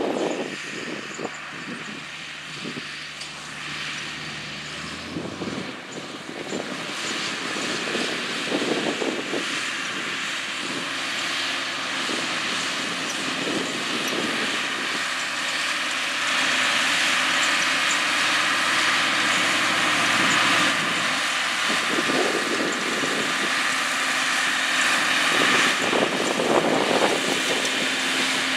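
John Deere 4960 tractor's six-cylinder turbo diesel engine running under load while pulling a 16-row corn planter, a steady engine drone with a high hiss and whine that grows gradually louder as the tractor comes closer.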